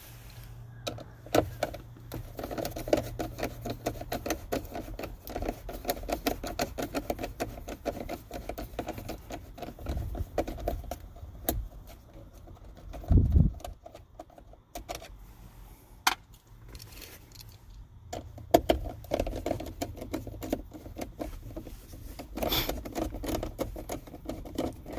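Rapid metallic clicking and rattling of a tool backing out the hex-head screws that hold the plastic dashboard cubbies, in two long runs, with a single dull thump about halfway through.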